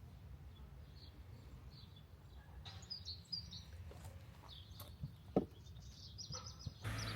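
Small birds chirping over a steady low outdoor rumble, with a single dull thump about five seconds in.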